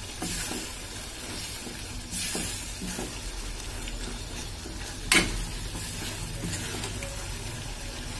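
Chilli paneer gravy sizzling in a metal pot while a ladle stirs it, with light scraping and a few clinks of the ladle against the pot, the loudest about five seconds in.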